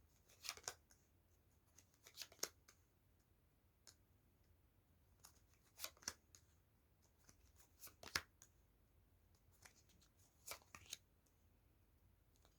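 Faint, scattered flicks and taps of a tarot deck being shuffled and handled, a handful of short crisp sounds with near silence between them.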